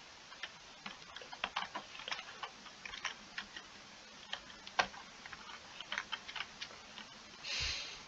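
Computer keyboard keys clicking in irregular runs as commands are typed, with a short breathy rush of noise near the end.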